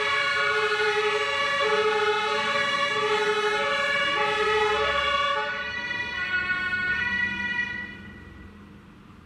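German two-tone emergency-vehicle sirens (Martinshorn) on a passing ambulance and fire engines, taking turns steadily between a low and a high note. The sound drops about five and a half seconds in and fades away over the last couple of seconds as the vehicles drive off.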